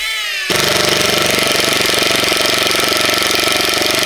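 DCK KDPL03-14 20V cordless impact driver set to low speed, driving a 3-inch screw into pressure-treated lumber: a short falling motor whine, then from about half a second in the fast, steady hammering of the impact mechanism.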